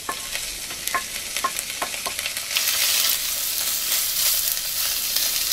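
Diced sausage sizzling in hot olive oil in a frying pan, stirred with a wooden spoon. A few light knocks come in the first two seconds, and the sizzle grows louder about two and a half seconds in.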